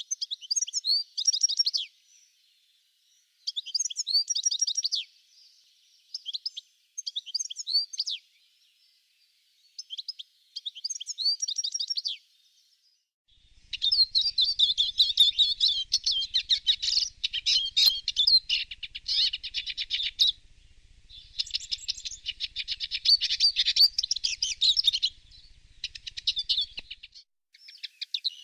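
Songbirds singing: short, high, twittering song phrases with pauses between them, then from about halfway a denser, almost continuous run of chirping.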